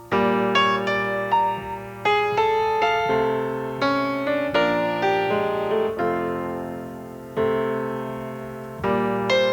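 Solo piano music: notes and chords struck every half second or so, each ringing on and dying away before the next.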